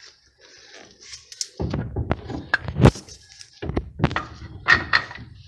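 Irregular sharp knocks and thunks from rough work on a wheel hub during a wheel bearing replacement: one quick run of strikes starting about one and a half seconds in, then a second run from about four seconds in.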